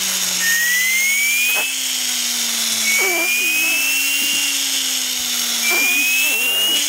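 Tornado toy blow-car's turbo spinning as a child blows into it: a steady whirring hum with a high whistle that rises in pitch, three times, once with each breath.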